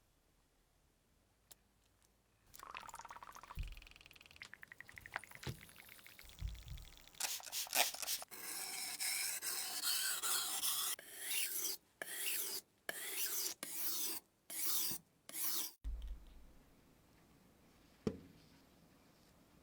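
Scraping and rubbing in a run of separate strokes between about 7 and 16 seconds in, with a few soft knocks before it.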